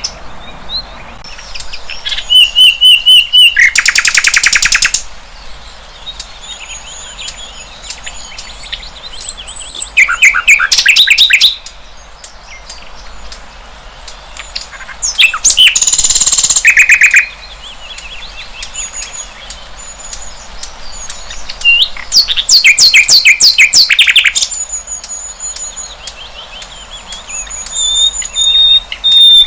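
Sikatan londo flycatcher singing: loud bursts of rapidly repeated sharp notes, each lasting one to three seconds and coming every several seconds, with softer high thin whistles in between.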